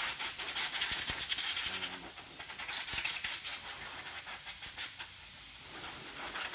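Compressed air from an air compressor's blow nozzle hissing steadily as it blows spilled toner out of a printer toner cartridge.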